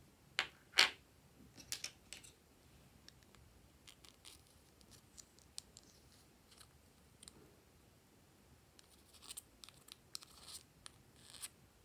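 A thin metal spatula scraping and clicking against a small plastic container as soft contents are scooped out. There are two sharp clicks about half a second in, and more scattered scrapes around two seconds and again near the end.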